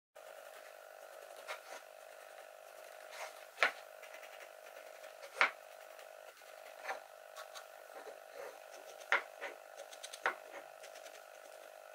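A pine block being handled and pencil-marked on a wooden board: about half a dozen light wooden knocks as it is set down and turned, over a steady faint hum.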